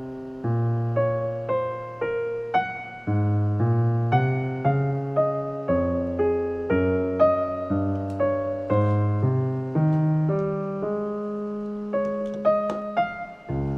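Background piano music: a gentle run of notes struck at an even pace, about two a second.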